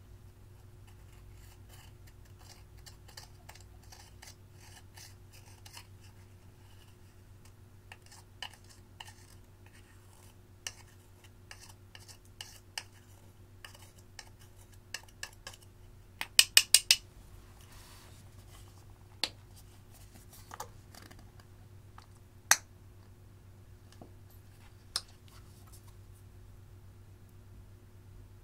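A metal spatula tool scraping and chipping pressed metallic eyeshadow out of its plastic pan, with many small scratchy clicks. About halfway through comes a quick run of sharp taps, then a few single loud taps.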